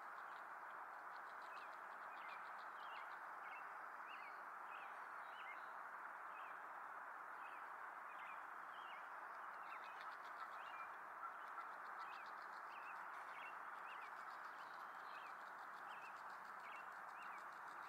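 Faint outdoor ambience: a steady hiss overlaid with short, repeated chirping calls from small animals, about one or two a second, and patches of fast ticking trills.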